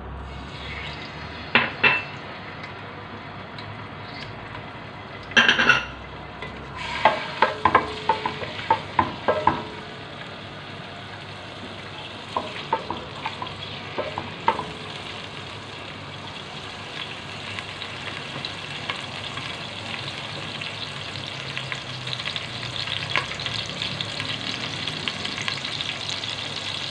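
Chopped ginger and garlic sizzling in hot oil in a metal pot. A spoon knocks and scrapes against the pot as they are stirred in the first half. The sizzle then grows steadily louder toward the end.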